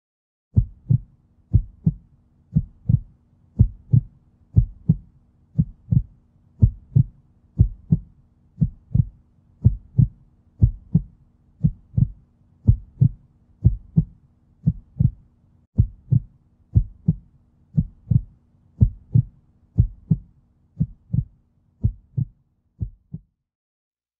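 Heartbeat sound effect: paired lub-dub thumps about once a second over a faint steady low hum, stopping shortly before the end.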